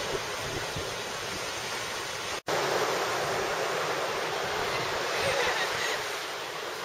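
Steady wash of ocean surf on a sandy beach, an even hiss with no distinct breaks, cut off for an instant about two and a half seconds in.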